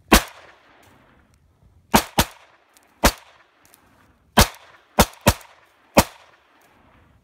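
EKOL Special 99 semi-automatic blank pistol firing blanks: eight sharp shots at uneven intervals, two of them close pairs, each followed by a short echoing tail.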